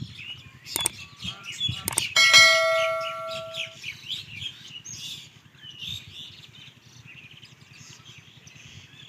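Small birds chirping throughout. A few sharp knocks are heard, then about two seconds in a struck metal object rings out with a bell-like clang that fades over about a second and a half.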